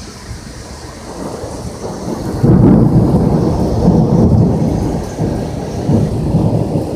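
Thunder from a close lightning strike, a deep rumble that swells sharply about two and a half seconds in and then rolls on, over the steady hiss of heavy rain.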